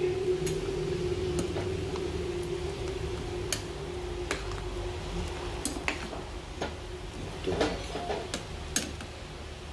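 A spoon clinking and scraping against a stainless steel pan while vegetables in coconut milk are stirred: about a dozen irregular sharp taps, with a cluster near the end, over a steady hum.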